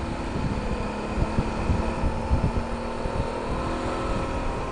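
Suzuki V-Strom's V-twin engine running at a steady road speed, its pitch holding even, under gusty wind buffeting on the microphone.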